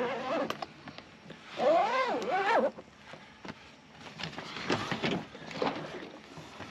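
Waterproof zipper on a BougeRV soft-sided cooler bag being pulled shut around the lid, a rasp whose pitch rises and falls as the pull speeds and slows, once around the start and again more loudly about a second and a half in. Short knocks and rustles follow as the bag is handled. The zipper is being closed to reseal the lid after a drop opened it enough to leak.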